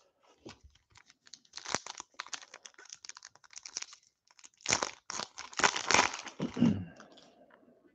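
Foil wrapper of an Upper Deck hockey card pack crinkling in the hands, then torn open with a louder burst of crackling and tearing a little past halfway through.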